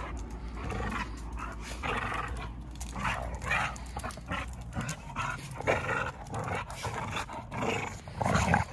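Two dogs play-fighting, growling at each other in many short growls through the whole stretch.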